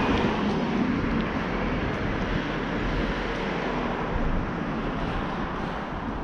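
Steady noise of road traffic going by, a little louder at the start and easing off slightly.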